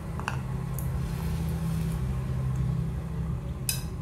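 A steady low mechanical hum runs in the background. A steel spoon clicks against a steel pot shortly after the start and scrapes briefly near the end as sprouts salad is scooped into a bowl.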